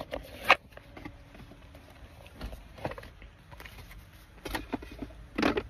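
Handling noise from a phone held in a car: a sharp click about half a second in, a few faint taps, and a short louder rustle near the end, over a low steady rumble of the car cabin.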